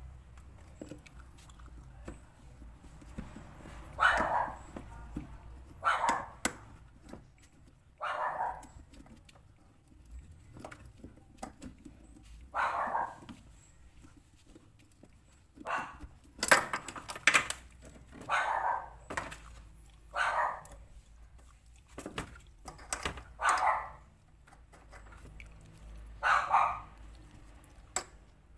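A dog barking repeatedly, about a dozen separate barks at irregular gaps, with faint scattered clicks and taps in between.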